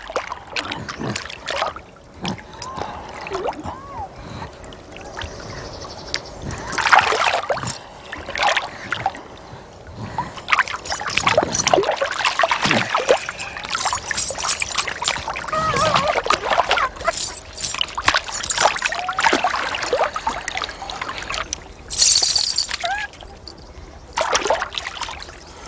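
Water splashing and sloshing in irregular bursts as monkeys are washed by hand in a river.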